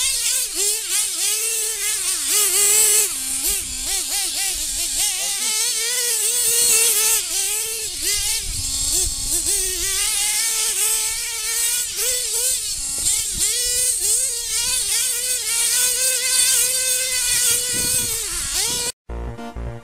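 Small nitro glow engine of a 1/8-scale RC buggy revving up and down as the car drives, its pitch rising and falling over and over. It cuts off near the end, and music starts.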